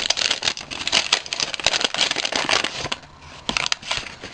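Gift wrapping and paper packing being opened by hand: a dense run of crinkling and rustling for about three seconds, thinning to a few scattered rustles and clicks near the end.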